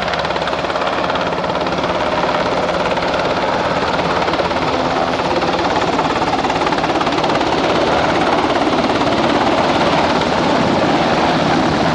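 SH-60 Seahawk helicopter flying a go-around pass close by, its rotor chop and turbine engines running steadily and growing a little louder as it nears.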